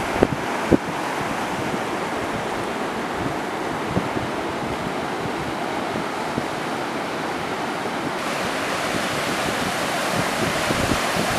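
Ocean surf breaking and washing in a steady rush, with wind on the microphone. Two brief thumps come in the first second, and a smaller one about four seconds in.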